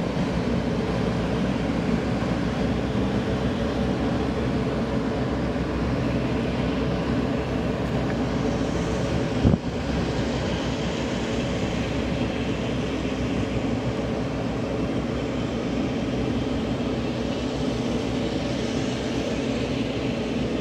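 Boat engine running steadily with the rigid-hull inflatable boat underway at speed, with a constant low drone under water and wind noise. A single sharp knock sounds about nine and a half seconds in.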